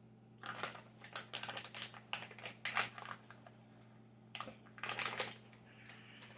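Plastic snack pouch crinkling and rustling in two bouts of quick crackles as a hand reaches in and pulls out a piece of butterscotch bark.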